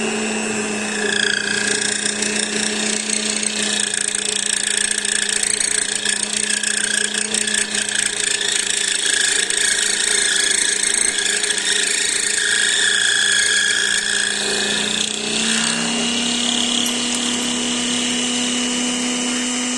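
Drill running steadily while a stubby hex-shank twist drill bit cuts through scrap brass, with a high squeal from the cut from about a second in until about fifteen seconds. Then the motor's pitch rises a little as the bit breaks free of the load.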